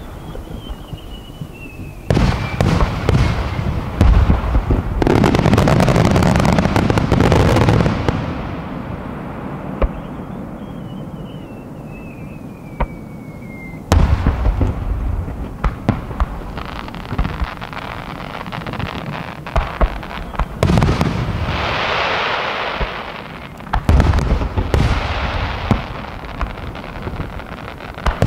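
Aerial firework shells bursting in a rapid barrage: deep booms and dense crackling, thickest about four to eight seconds in and again from about fourteen seconds on. Twice, a thin whistle glides down in pitch for a few seconds before the next bursts.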